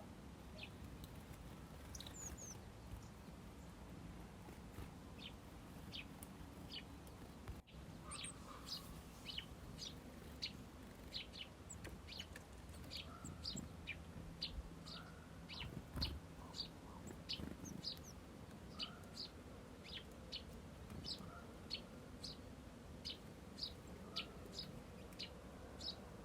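Small songbirds chirping: short, high chirps, scattered for the first several seconds, then repeating steadily about twice a second.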